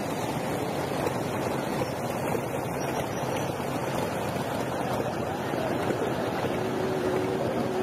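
Many motorcycle engines running together, a steady mass of engine noise with no single machine standing out.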